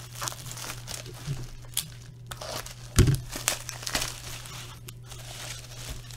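Plastic wrapping crinkling and tearing as a sealed trading-card box is unwrapped and opened, with one loud thump about three seconds in, over a steady low electrical hum.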